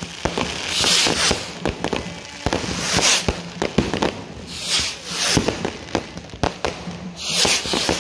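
Fireworks going off: a quick, irregular string of sharp bangs and pops, with a hissing crackle that swells and fades about every second or two as shells burst.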